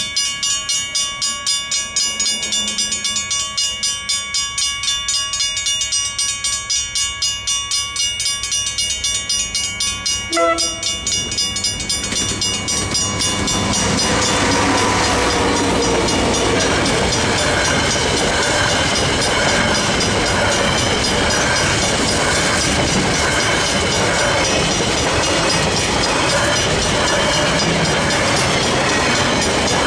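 Griswold mechanical level-crossing bells clanging rapidly, about three strikes a second. About ten seconds in, a KiwiRail DL-class diesel locomotive sounds a short horn blast. Then the locomotive and its container wagons roll across the crossing, loud and steady, drowning out the bells.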